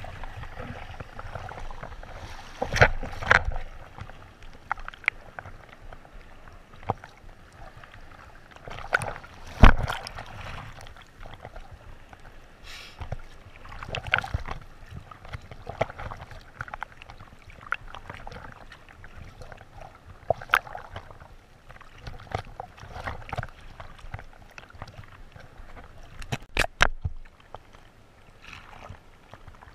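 Wind-chopped sea water sloshing and slapping against a GoPro's waterproof housing held at the surface, with several sharp splash hits at irregular moments, the loudest about ten seconds in.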